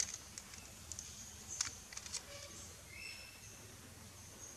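Faint outdoor ambience with short, high, intermittent bird chirps and a few sharp soft clicks early on and around the middle.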